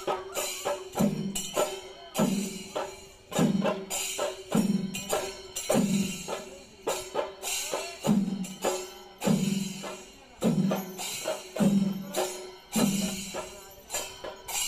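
Percussion music: a deep drum stroke about every 1.2 seconds, with quicker strikes and metallic cymbal-like clashing over it.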